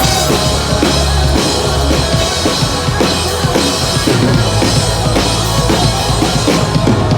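Hard rock band playing live: drum kit driving a steady beat under electric guitars and bass guitar.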